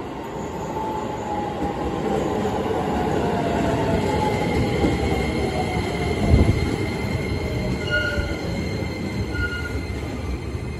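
Keisei 3000 series electric commuter train pulling into a station and braking. Its motor whine falls in pitch as it slows, over wheel and rail rumble. A high steady squeal joins about four seconds in, and there is a single thump about six seconds in.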